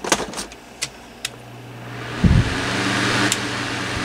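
Honeywell HT-904 turbo fan switched on for a test: its motor hums low and steady, and from about halfway a rush of air from the spinning blade rises and holds, with a thump as it gets going. Its freshly serviced bearings let it spin up freely.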